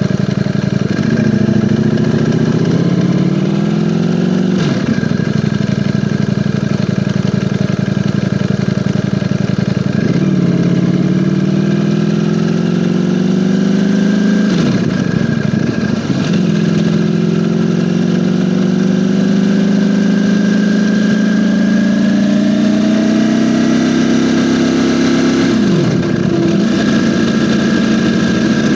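Ducati Panigale V4 motorcycle's V4 engine under way, heard from a mic mounted on the bike. Its pitch climbs slowly for several seconds at a stretch, with a brief sharp dip and recovery several times, as at gear changes or throttle lifts.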